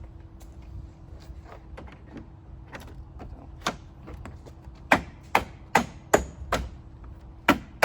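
A run of sharp knocks and snaps as plastic bumper trim and push-pin retainers on a Jeep Gladiator are pressed and tapped into place, a few faint ones at first, then louder ones about two to three a second in the second half.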